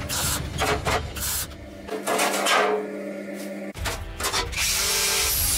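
MIG welder laying short tack welds on sheet steel: a quick series of brief crackling bursts, changing to a steady hiss near the end, over background music.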